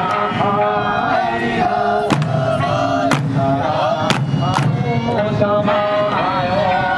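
Okinawan eisa: a group of voices singing and chanting together with shouted calls, over sharp drum strikes about once a second.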